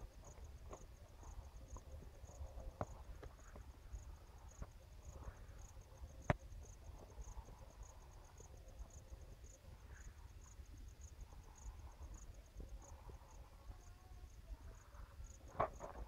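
Faint field ambience: an insect chirping in a steady, high, rapid pulse of about three to four chirps a second over a low wind rumble on the microphone. Scattered footstep crunches and clicks on dry ploughed soil, the sharpest about six seconds in.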